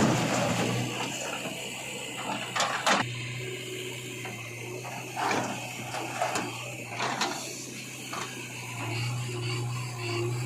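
A machine's motor humming steadily, with several sharp metallic clanks and knocks, a pair about two and a half seconds in and more between five and seven seconds in, as of a loader bucket working.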